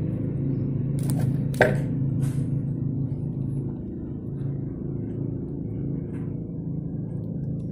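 Scissors snipping open plastic seasoning sachets: a few sharp snips and crinkles between about one and two and a half seconds in, the loudest near the middle of them. A steady low hum runs underneath throughout.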